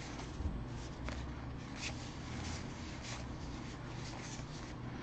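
Quiet slides and flicks of baseball trading cards being thumbed one at a time from one hand's stack to the other, a few light flicks spread through.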